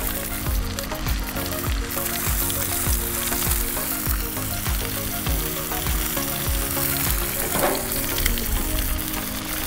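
Bacon strips frying hot and fast on a gas flat-top griddle at about 450 to 500 degrees, a steady sizzle of spitting fat.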